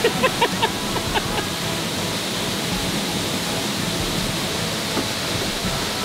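Mountain stream rushing steadily, with a few brief high voices in the first second and a half.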